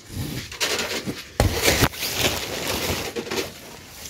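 Plastic sheet curtain rustling and crinkling as it is untied and let down, in irregular bursts that are loudest about a second and a half in.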